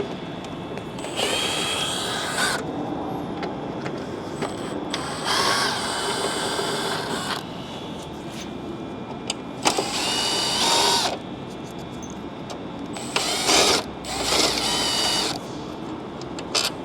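Cordless drill/driver spinning Torx 20 screws out of a truck's lower headlight mounts, in about five short runs with a steady motor whine.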